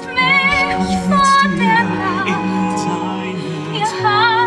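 A woman singing with vibrato over sustained orchestral chords in a stage-musical ballad, moving to new notes every second or two.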